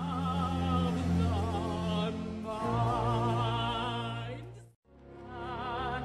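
A female opera singer sings long, held notes with a wide vibrato over a low, steady orchestral accompaniment. The sound breaks off for an instant about three-quarters of the way through, then the singing resumes.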